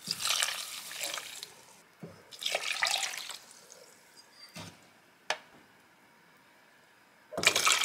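Water poured from a mug into a rice cooker's inner pot of dry polenta, in separate pours of a second or more: two early on and a third starting near the end. Two short light knocks fall in the quiet gap between them.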